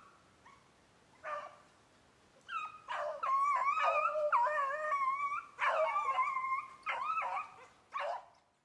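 Beagles baying on the track of a snowshoe hare: long, wavering hound bawls, a few faint ones at first, then nearly unbroken and overlapping from about two and a half seconds in, cutting off near the end.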